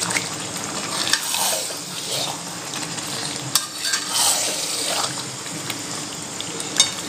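A spatula stirring raw chicken pieces through hot, sizzling masala in a metal kadhai, in several scraping strokes, with a couple of sharp knocks of the spatula against the pan.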